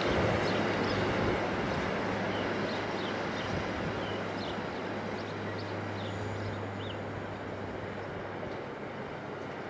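Freight train of loaded car-carrier wagons rolling away, its wheel rumble fading steadily into the distance. A few short bird chirps sound over it.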